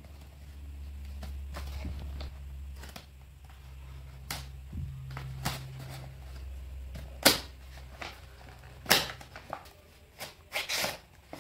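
Cardboard boxes and a paper mailer being handled and opened: paper and cardboard rustling with a series of sharp taps and knocks, over a low steady hum.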